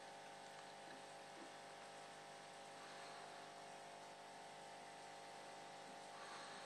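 Faint, steady electrical hum of an aquarium pump, with a soft hiss underneath.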